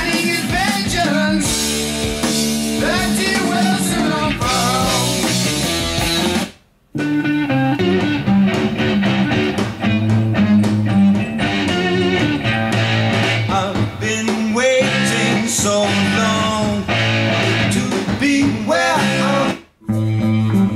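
Rock music with guitar and a singing voice, cutting out for a moment twice, about seven seconds in and again near the end.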